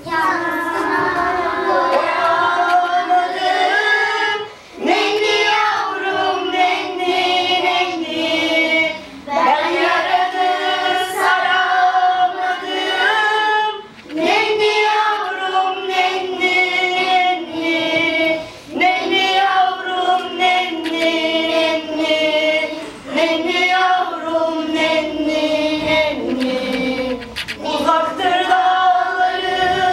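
A group of children's voices singing a slow song together, line by line, with a short breath between phrases about every four to five seconds.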